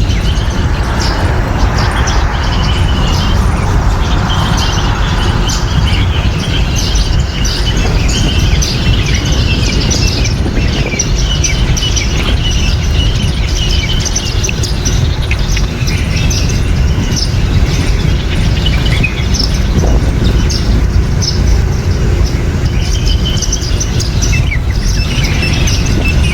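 Small birds chirping and chattering continuously, with many short high chirps, over a steady rushing noise of rain.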